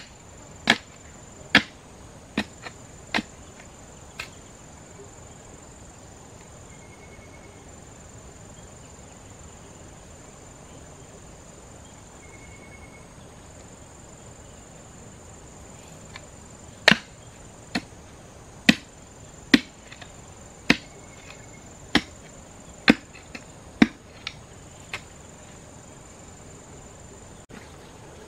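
A long-handled digging tool striking stony soil with hard, sharp knocks: a handful in the first few seconds, then after a quiet stretch a run of about ten, roughly one a second. Insects keep up a steady high shrill throughout.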